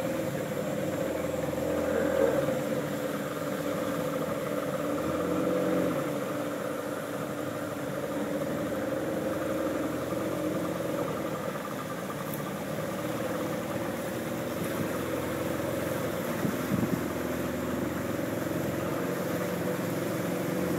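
Boat engine running steadily at cruising speed, with a small swell in level about two seconds in.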